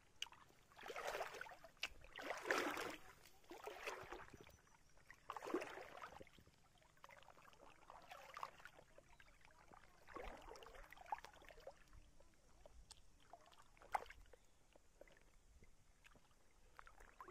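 Faint water splashing and sloshing in irregular bursts as a fishing net is hauled out of the river, with a single sharp click about 14 seconds in.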